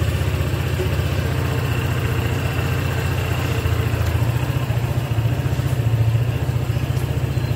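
Honda PCX 150 scooter's single-cylinder engine idling steadily, with an even low pulse.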